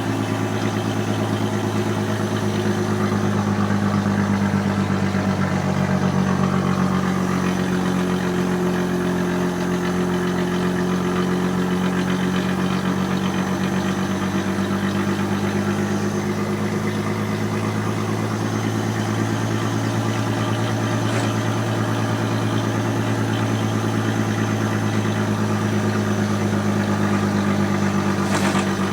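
FNM engine idling steadily with an even rumble.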